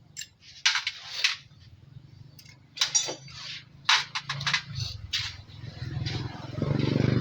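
Metal tools and parts clinking and clattering several times. A low drone builds over the last few seconds and becomes the loudest sound near the end.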